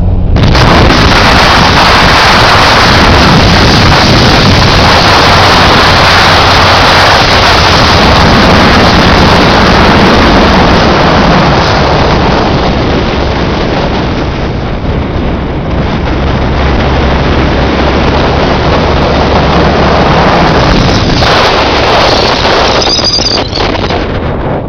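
Loud rush of wind and road noise from a car at motorway speed, starting abruptly, with the engine's steady low hum underneath; it eases a little about two-thirds of the way through as the car slows.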